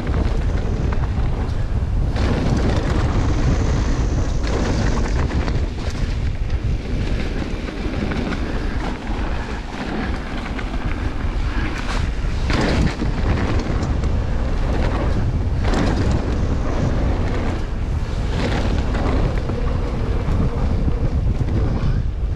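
Wind buffeting the microphone and mountain-bike tyres rolling over a trail at speed, with a few brief clatters of the bike over bumps about halfway through and again near the end.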